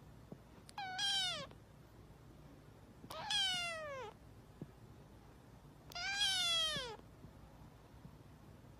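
Kitten meowing three times, a couple of seconds apart. Each meow lasts about a second and falls in pitch.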